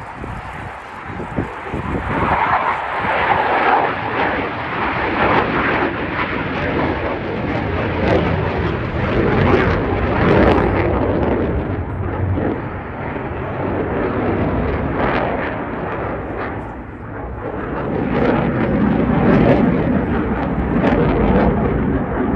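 Dassault Rafale fighter jet, its twin Snecma M88 turbofans making loud, rough jet noise as it flies its display overhead. The noise builds about two seconds in, eases for a moment about two-thirds of the way through, and swells again near the end.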